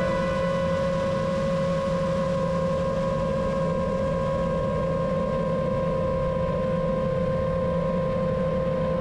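Ambient synthesizer music holding one steady, unchanging drone chord over a soft hiss.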